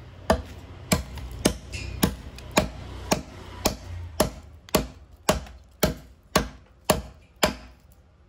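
Hand-forged dao mèo chopping knife of old twisted steel striking into wood about fourteen times in an even rhythm, roughly two strokes a second: a chopping test of the blade's edge.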